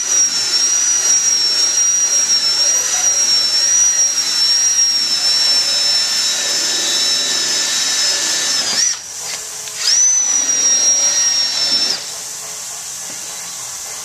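Cordless drill spinning a foam pad against a plastic headlight lens to take off the yellowed surface: a steady high-pitched whine. The drill stops briefly about nine seconds in, spins back up with a rising whine, then cuts off a couple of seconds before the end.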